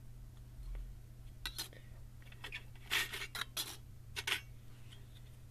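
Thin metal sample plates clinking and clattering as they are handled and set down on a table, a string of sharp clicks bunched between about one and a half and four and a half seconds in.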